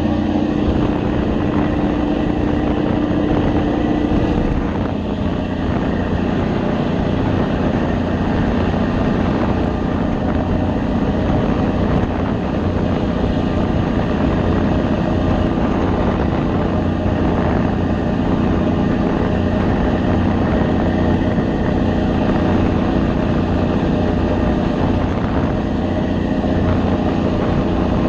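Passenger boat's engine running with a steady drone while the boat is under way, under a constant rush of water from its wake.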